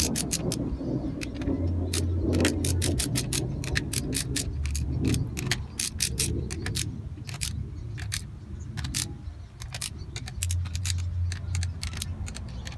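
Ratcheting torque wrench clicking in quick, irregular runs as the small bolts of a gearbox top plate are tightened to a low torque. A low hum comes and goes underneath.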